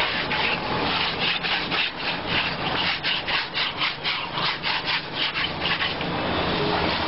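Rubber inner tube being scrubbed clean with quick, even rasping strokes, several a second.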